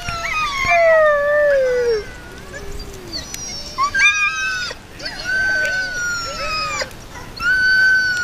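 Team of harnessed Alaskan husky sled dogs howling, several long calls overlapping and sliding down in pitch one after another, the sound of dogs excited and eager to run.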